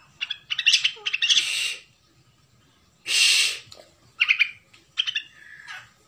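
White-rumped shama of the Bahorok strain singing in full voice. Quick runs of sharp, clear notes alternate with harsh, rasping bursts, with a pause of about a second in the middle.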